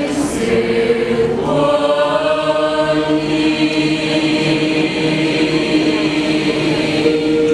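High-school choir singing in several parts, holding long sustained chords that change now and then.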